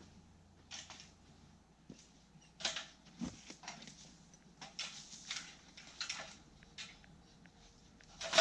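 Footsteps crunching on dry leaves and brush with the light rattle of an aluminium ladder being carried, in short scattered rustles. Near the end the ladder is set down on the ground with a louder knock.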